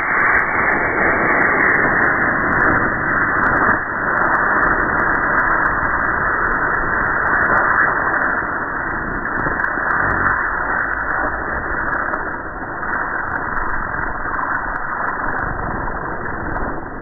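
A long string of firecrackers going off, a rapid, continuous crackle of small pops that runs on without a break.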